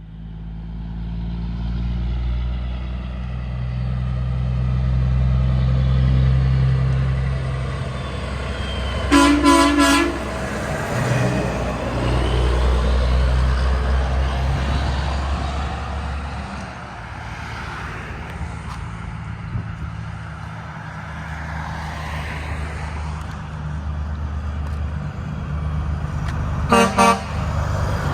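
Heavy trucks' engines running past with a steady low drone, and short bursts of truck horn: three quick toots about nine seconds in and two more near the end.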